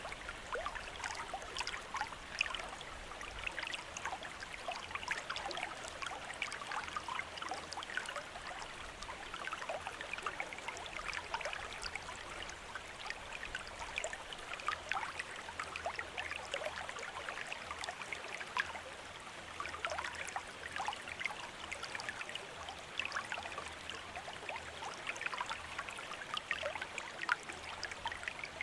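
Water from a bamboo fountain trickling and splashing steadily into a basin, a continuous run of many small droplet splashes with no pauses.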